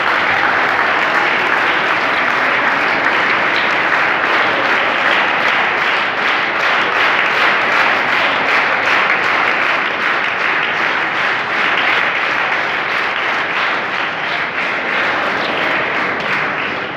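Sustained applause from a seated audience of schoolchildren, many hands clapping continuously, easing off slightly in the last few seconds.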